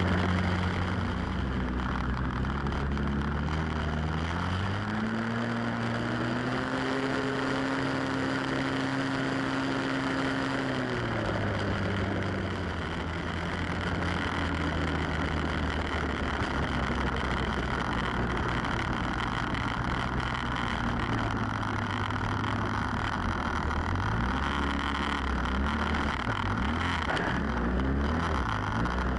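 Snowmobile engine running under way on the trail, with a steady hiss of track and snow beneath it. About five seconds in the engine speeds up to a higher pitch, holds it for several seconds, then eases back down; the pitch rises and falls again a few times near the end.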